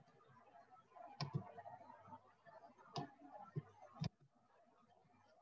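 Faint, sharp clicks of a computer mouse, about five of them, the last about four seconds in as the Save button is clicked.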